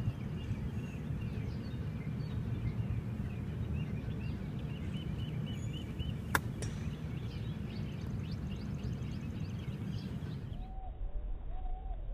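One sharp click about six seconds in as a golf club strikes the ball on a chip shot, over a steady low rush of outdoor noise and birds chirping. Near the end a dove coos repeatedly.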